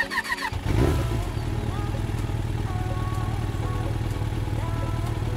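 Motorcycle engine sound idling steadily, a low pulsing rumble that starts about half a second in, just after a few short high chirps.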